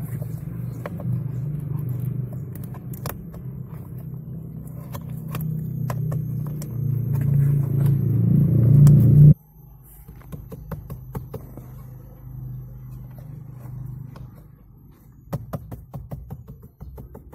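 A steady low hum inside a Honda Mobilio's cabin, from behind the dashboard, grows louder and then cuts off abruptly about nine seconds in. After that come scattered light clicks and taps of hands handling the dashboard's plastic parts around the blower-fan housing.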